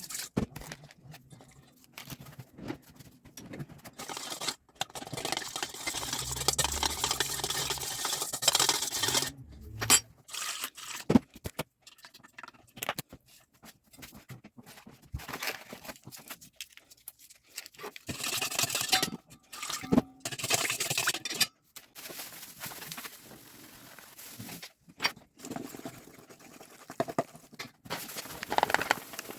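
Kitchen food-preparation noises: bursts of rustling and scraping, with scattered knocks and taps between quieter pauses.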